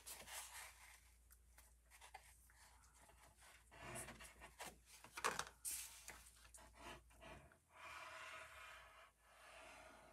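Faint rubbing, rustling and a few light taps of paper cardstock being handled, close to near silence.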